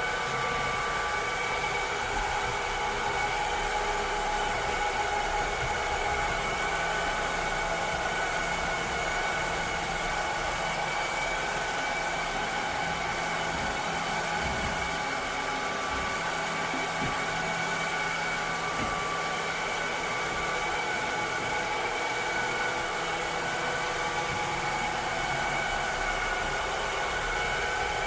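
Cleaning robot's motor running steadily: an even whir with a few high steady tones over a hiss, with no pause or change.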